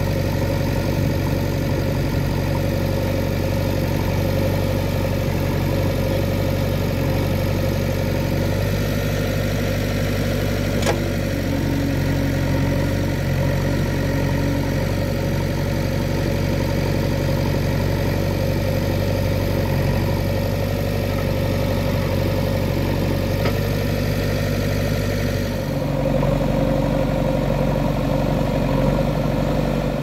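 JCB 3DX backhoe loader's diesel engine running steadily while the backhoe arm digs, with a single sharp knock about a third of the way in. Near the end the engine sound changes.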